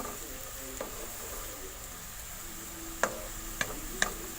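Onions frying and browning in oil in a pan, a steady sizzle, with a utensil clicking against the pan a few times as they are stirred, mostly near the end.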